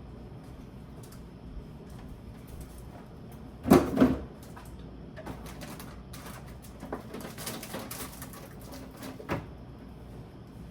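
Groceries and plastic containers knocked and set down while a fridge is being stocked: a loud double clunk about four seconds in, then lighter clicks and rattles.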